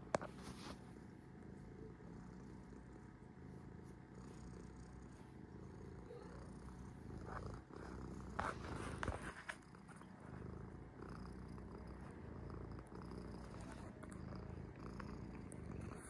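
Domestic cat purring steadily, close up, while being stroked. A sharp knock right at the start and a brief burst of handling noise about halfway through.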